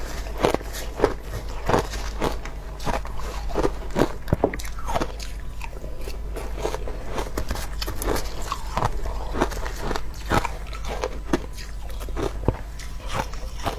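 Close-miked crunching of shaved ice being bitten and chewed, a sharp crunch roughly every half second to second.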